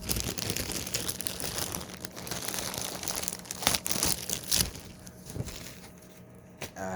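Packaging being handled and torn open, with a steady crinkling and tearing and a couple of sharper snaps about four seconds in. It gets quieter near the end.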